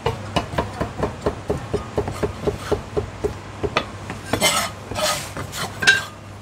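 Chinese cleaver slicing marinated offal on a wooden chopping block, a steady run of quick knocks, about five a second. Near the end come a few scrapes as the blade is dragged across the block and one harder knock.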